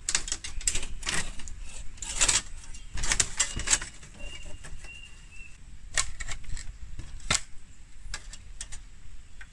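Bamboo pieces being handled during coop building: an irregular run of rustling scrapes and sharp knocks, busiest in the first few seconds, with a few single knocks later.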